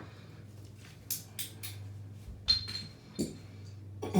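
Small metal drain parts and tools clinking and tapping against a bathtub: a few light clicks, then a sharper clink about two and a half seconds in that rings briefly, and another knock near the end.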